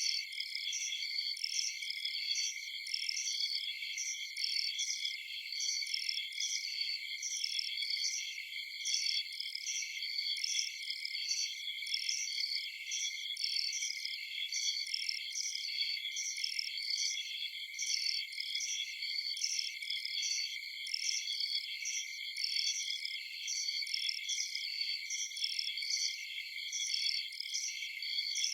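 Night chorus of crickets and other insects: several steady high-pitched trills overlap, with one chirp repeating about twice a second.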